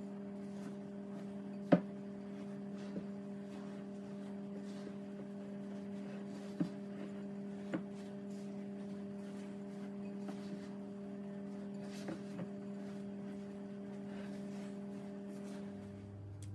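Spatula stirring a thick oat and peanut-butter mixture in a glass bowl: faint scraping with a few sharp knocks against the glass, the loudest about two seconds in, over a steady low electrical hum.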